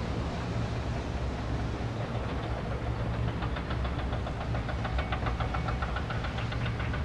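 An engine running steadily with a low hum, joined about three seconds in by a fast ticking clatter.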